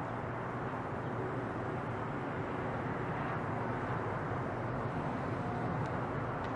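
Steady, even distant rumble of traffic and aircraft, with no single sound standing out.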